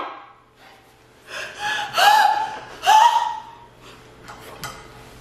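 A woman's wordless voice making three high, gliding sounds in quick succession, like excited squeals, then a few faint clicks near the end.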